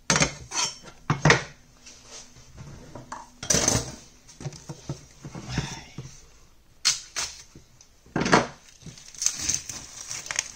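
Steel meat cleaver knocking and clattering against a wooden cutting board: a series of sharp, irregular knocks.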